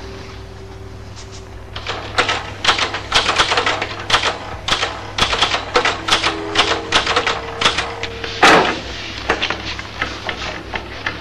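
Typewriter keys clacking in an irregular run of strokes, starting about two seconds in. One heavier clunk comes about eight and a half seconds in.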